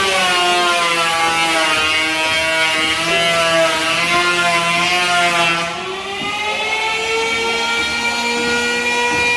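A handheld power tool's motor whining as it works wood, its pitch sagging and recovering with the load. About six seconds in it drops briefly, then runs on at a steady pitch.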